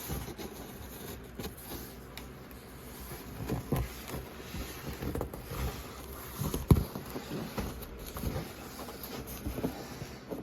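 A cardboard fan box being handled and shifted: rustling and scraping with irregular soft knocks, the sharpest knock about two-thirds of the way through.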